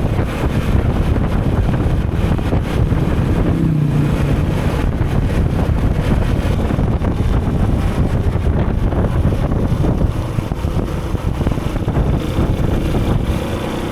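Wind buffeting the microphone of a rider on a moving motorbike, over steady engine and road noise.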